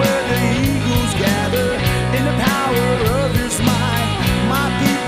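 Background rock music with guitar and a steady beat, a melody line wavering over it.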